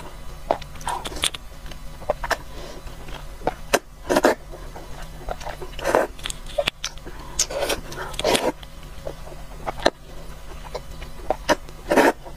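A person slurping up mouthfuls of thin noodles in sesame-paste soup, with about five long, loud slurps and small wet chewing and mouth clicks between them.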